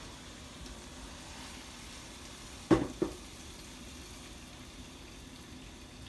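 Gas stove burner hissing steadily with its flame on, with two sharp knocks close together near the middle.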